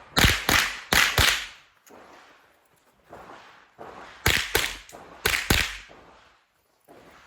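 A .22 rimfire IPSC Mini Rifle fired in four quick double-taps, eight sharp shots in all: two pairs in the first second and a half, then two more pairs about four to six seconds in, with a few fainter knocks between them.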